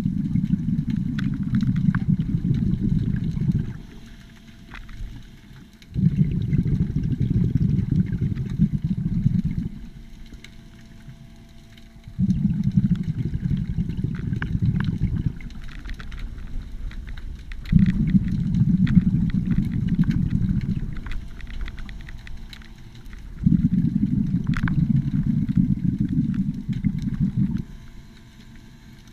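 Scuba diver's exhaled breath bubbling out of the regulator: five long low bubbling rumbles, one roughly every six seconds in time with slow breathing, with faint clicks between them.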